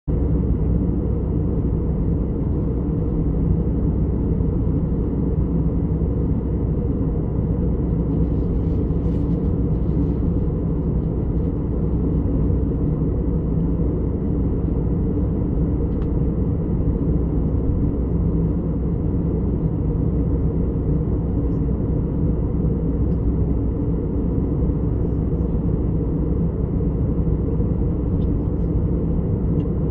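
Steady cabin noise of a jet airliner in cruise, heard from a window seat: an even, low rumble of engine and airflow noise that holds constant throughout.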